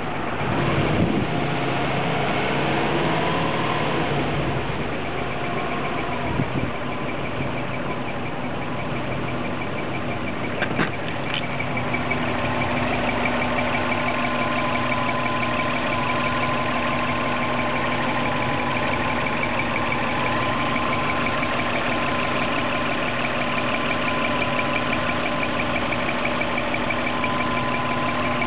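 Swapped-in 2004 Subaru WRX turbocharged flat-four idling after a brief rev, with a steady squeak that comes in strongly about twelve seconds in and holds: a noise that appears only once the engine is fully warmed up, cause unknown. A couple of sharp clicks just before the squeak settles in.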